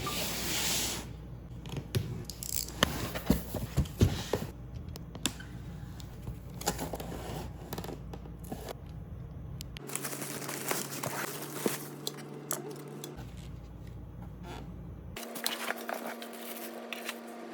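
Close rustling and crinkling with many scattered sharp clicks and snaps, densest in the first few seconds.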